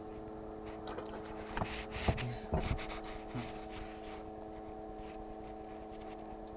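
A steady hum of several held tones, with a short cluster of knocks and clicks about two seconds in.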